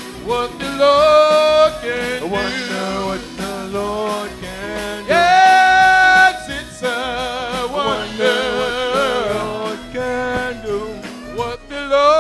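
Live gospel song sung by a church choir with a lead singer and band accompaniment; a long held note comes about five seconds in.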